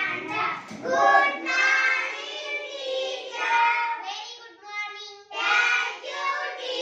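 Schoolchildren singing together in a sing-song chant, in long drawn-out phrases with short breaks.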